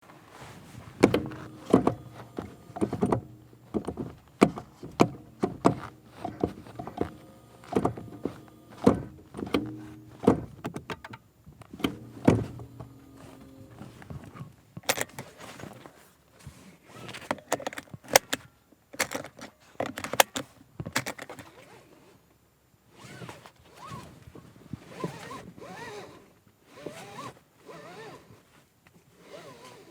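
Toyota RAV4 hybrid cabin being handled: the gear selector and interior plastic trim clunking and knocking, a string of sharp clunks about one or two a second, then lighter clicks and rubbing in the second half.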